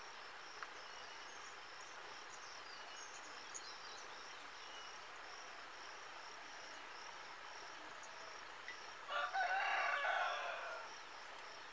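A rooster crows once, about nine seconds in, in a single call of a second and a half. Underneath is a steady, faint, high pulsing chirr with a few small bird chirps.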